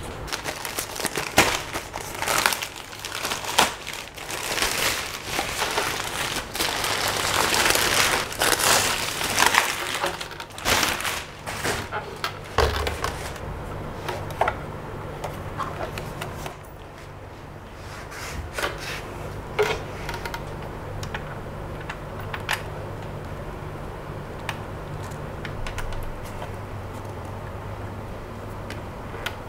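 Plastic wrapping rustling and crinkling as it is pulled off a self-balancing scooter, for the first dozen seconds or so, then occasional light clicks and knocks as the scooter is handled, over a steady low hum.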